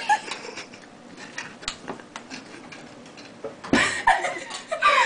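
Metal fork ticking and scraping against a small saucepan as sauce is stirred, with scattered light clinks. About three and a half seconds in, and again just before the end, a girl gives brief high-pitched vocal squeals.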